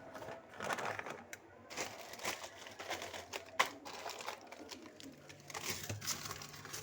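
Plastic snack packets crinkling and rustling as they are handled, with a few sharp clicks and knocks, one standing out about halfway through.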